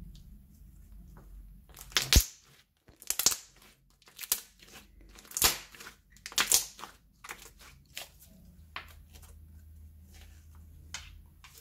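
Slime being squeezed and pressed by hand: a series of short squishing and crackling sounds, about five loud ones in the first half, then a few fainter ones.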